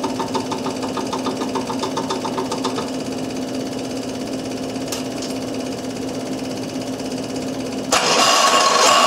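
Rapid ticking, about six a second, over a steady hum during the first three seconds while the Onan diesel's glow plugs heat. About eight seconds in, the freshly installed Onan diesel engine starts with a sudden loud rise and keeps running.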